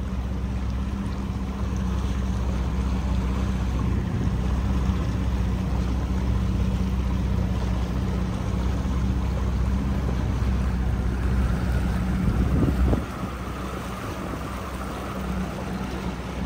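Outboard motor of a center-console boat running at low speed, a steady low drone under wind on the microphone and water noise. The engine gets quieter about thirteen seconds in.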